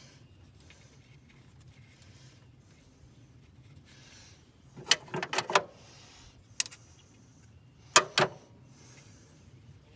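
Sharp clicks and clacks of parts being handled in an engine bay, with the engine off: a quick cluster about five seconds in, a single click, then two more close together near the end.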